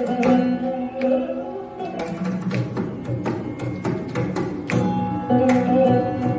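Carnatic music on a Saraswati veena: plucked notes ringing and sliding through a melody in Simhendramadhyamam raga, with mridangam strokes alongside.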